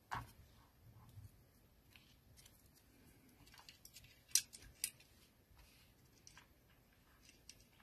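Quiet handling of paper and card pieces, with two sharp snips of small craft scissors cutting paper, about half a second apart, some four and a half seconds in.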